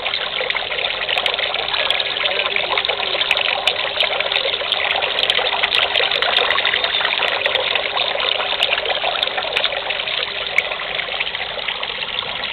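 Water from a hanging wall fountain trickling steadily, spilling in thin streams from a lion-head spout and a shell-shaped bowl into the basin below. The trickle is a little louder in the middle.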